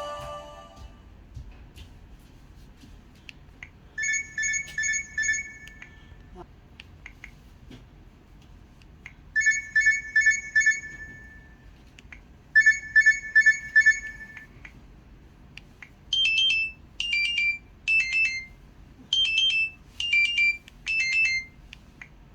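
Electronic alarm tones from an LG Wine Smart phone, recorded through another phone: first a rapid warbling ring in three short bursts a few seconds apart, then a different tone of short falling two-note chirps, six in a row about a second apart.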